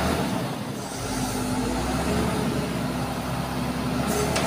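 Truck-mounted crane's diesel engine running steadily as the crane is worked, with a short high hiss about four seconds in.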